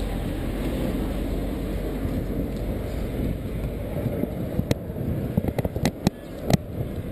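A steady low rumble of outdoor street noise. From about five seconds in, a cluster of sharp, irregular clicks and knocks cuts across it.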